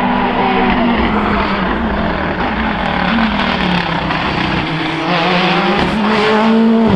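Rally car engine pulling hard on a tarmac stage. Its pitch falls and rises with gear changes and throttle, then climbs near the end as the car accelerates.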